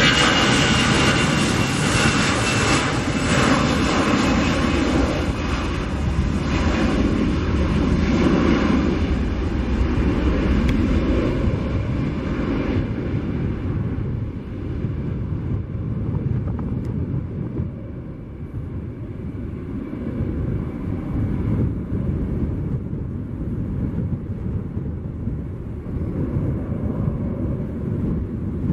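Airbus A319 corporate jet's twin jet engines at takeoff power as it rolls past and lifts off: a loud roar with a high whine. About twelve seconds in the whine and hiss fade, leaving a lower rumble as the jet climbs away.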